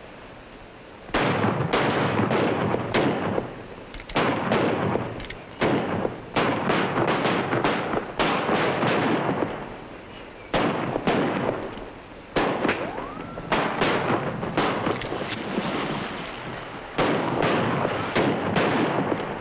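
Rapid gunfire from several rifles: sharp shots in quick, uneven succession, each with a long fading tail, often overlapping. It begins about a second in.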